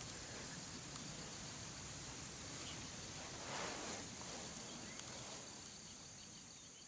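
Faint outdoor ambience: a steady, high insect buzz over a low rumble, with a brief swish of noise about three and a half seconds in.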